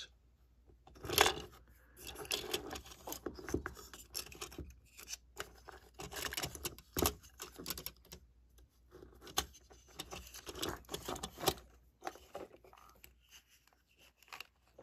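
Handling noise from a plastic 00-gauge model train held close to the microphone: irregular clicks, scrapes and rubs in bursts, quieter near the end.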